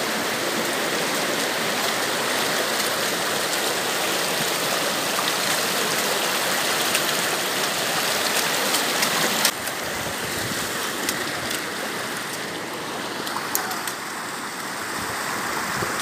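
Rushing water of a mountain stream, a steady, full rush that drops abruptly in level about halfway through.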